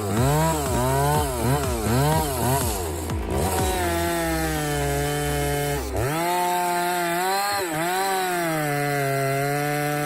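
Two-stroke chainsaw engine revved up and down about twice a second, then held at high speed from about four seconds in, its pitch dipping briefly twice as the chain loads in the cut.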